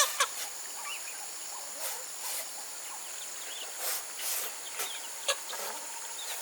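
Farm birds calling in short, scattered chirps, with a louder call at the very start, over a steady high-pitched insect drone. A few sharp clicks or knocks occur, the loudest about five seconds in.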